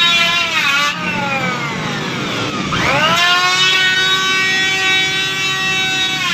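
A small motor whining. Its pitch wobbles up and down, then slides down for about two seconds as it coasts, rises quickly about three seconds in, and holds a steady high whine.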